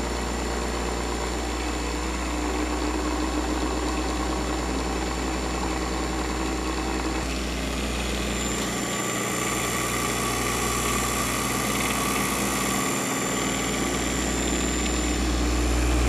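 Vintage single-phase capacitor-start induction motor running steadily on full line voltage after an across-the-line start with no current limiting: a constant low electrical hum with a faint high whine above it.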